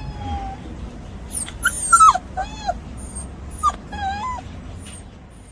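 Young Jindo puppies whining and yelping in a series of short, high-pitched cries that bend up and down in pitch, loudest about two seconds in.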